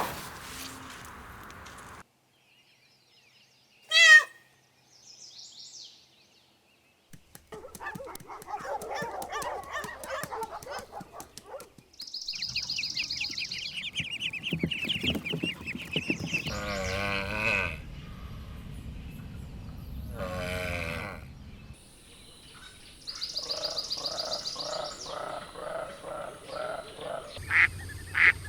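Farm poultry calling, ducks among them, in a run of short clips cut together. The calls come as separate bursts and series with brief silent gaps between them, including a quick run of repeated calls near the end.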